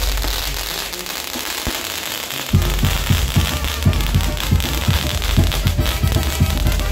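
Fireworks on a burning torito hissing and crackling as they spray sparks. About two and a half seconds in, loud music with a steady thumping beat comes in.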